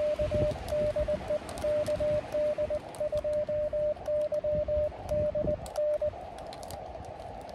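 Morse code (CW) from an Elecraft KX2 transceiver: a single steady tone keyed in dots and dashes over the receiver's band hiss, stopping about six seconds in and leaving only the hiss. Wind rumbles on the microphone underneath.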